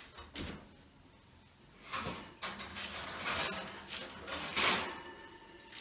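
Oven door being opened and the metal oven rack sliding out, with scrapes and clatters as a baking dish is lifted off it; three louder bursts about two, three and four and a half seconds in.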